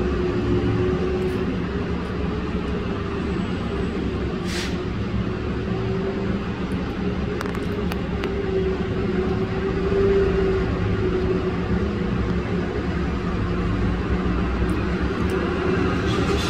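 Steady low drone of heavy machinery, with a faint hum that wavers slightly in pitch.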